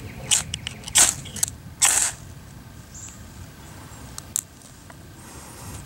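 Ferro rod scraped hard with a knife four times in quick succession, each stroke a short rasp throwing sparks onto the fluffed end of a wax-soaked sisal fire rope; the strikes stop after about two seconds.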